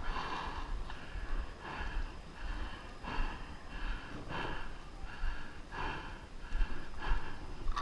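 Heavy, rapid breathing through a paintball mask, about one breath every half second, over low bumps of movement against the microphone.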